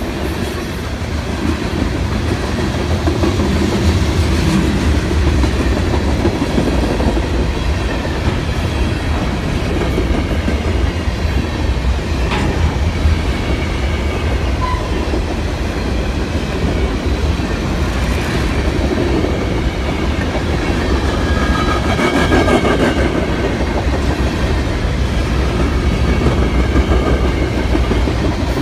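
Freight cars of a mixed freight train (tank cars, covered hoppers and boxcars) rolling past close by: a steady rumble and clatter of steel wheels on the rails.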